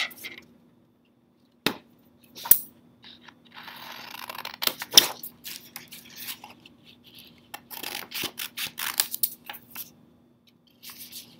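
Scissors cutting a sheet of paper: scattered single snips and paper rustling as the sheet is turned, then a quick run of snips about two thirds of the way in.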